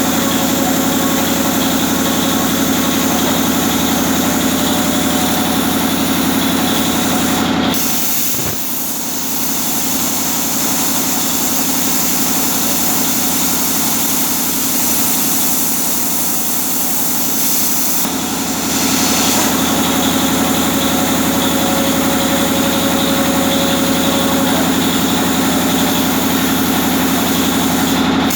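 Plasma cutting rig running: a steady, loud machine hum with a continuous hiss, which drops briefly about eight seconds in and steps back up later.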